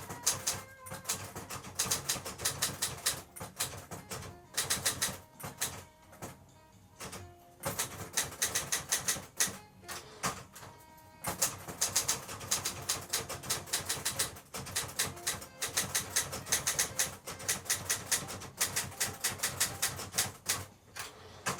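Olivetti Linea 88 typewriter being typed on: fast runs of key strikes broken by short pauses.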